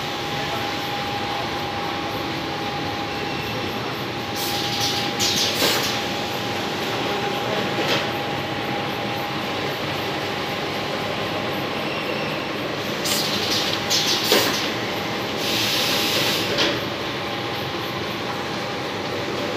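Automatic paper-to-greyboard gluing machine running: a steady mechanical drone with a constant thin whine. Short bursts of hiss come in clusters about five seconds in and again around fourteen to sixteen seconds.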